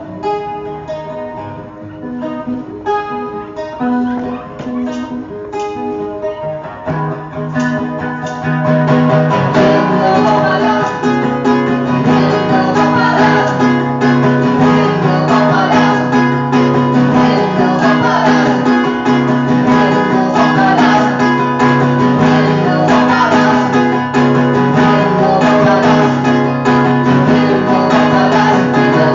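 Live guitar playing an instrumental passage with no singing. It starts with sparser picked notes, and about seven seconds in it turns into fuller, louder rhythmic strumming.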